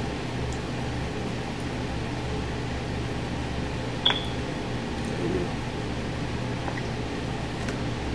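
Steady low hum of room background noise, with one short sharp click about four seconds in.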